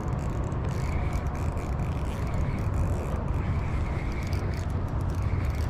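Steady low rumble with a hiss above it: wind and clothing brushing over a chest-mounted action camera's microphone.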